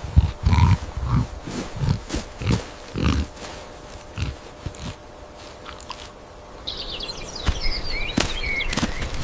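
A run of short, low animal calls, about two a second, for the first three seconds or so, then birds chirping from about seven seconds in.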